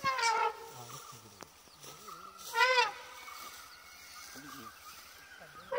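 An animal calling loudly three times, each a short, clear pitched cry about half a second long: the first falls in pitch, the second, about two and a half seconds in, rises and falls, and a third begins at the very end.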